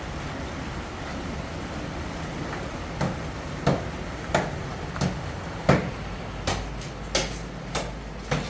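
A steady low hum, then, about three seconds in, regular sharp knocks begin, roughly three every two seconds, each louder than the hum.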